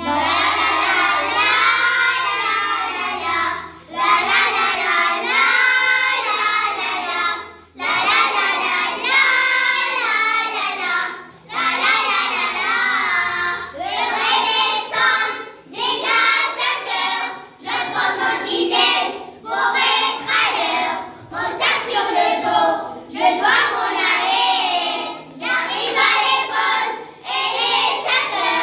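A group of young children singing a song in unison, in phrases of a few seconds with short breaks between them.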